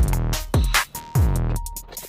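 Electronic music with a drum-machine beat: sharp hits about every half second, each with a deep bass note that drops in pitch.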